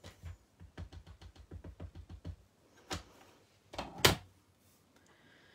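A rubber stamp on an acrylic block being tapped on an ink pad: a quick run of light taps, about five or six a second, for a couple of seconds. Then a click and two sharper knocks about four seconds in, the second the loudest.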